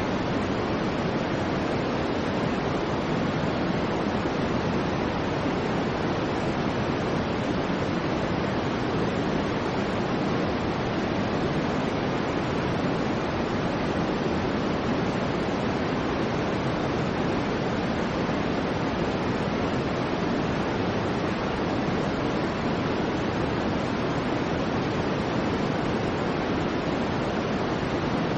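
Steady soft white noise for a baby's sleep: an even hiss that sounds more rumbly than bright, without any swells or changes.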